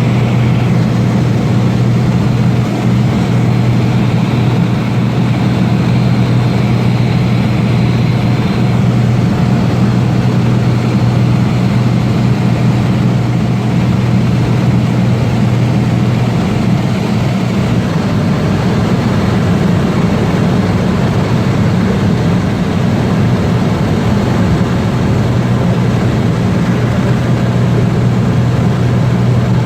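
Cessna 206 single-engine light aircraft in flight, its piston engine and propeller droning loudly and steadily with a deep hum, the tone easing slightly for a few seconds past the middle before settling back.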